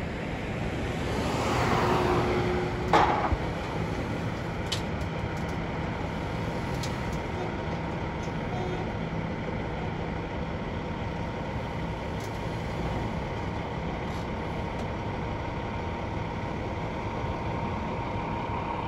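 Two-tier car carrier truck's diesel engine idling steadily, with a faint steady high whine. A louder swell of noise builds in the first seconds and ends in a sharp knock about three seconds in.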